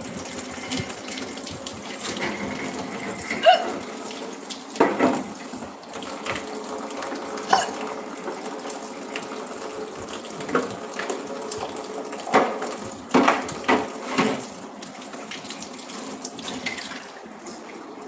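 A woman hiccuping repeatedly: about eight short, sharp hiccups at irregular intervals, some with a brief falling pitch, over a steady background hiss.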